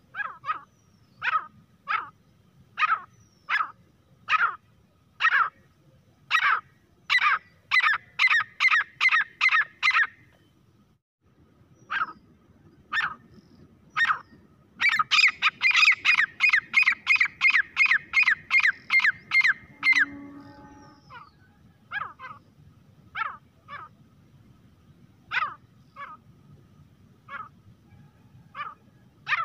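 Grey francolin calling: loud, sharp repeated notes, spaced at first, that twice quicken into a fast run of about three calls a second, then slow again to spaced single notes.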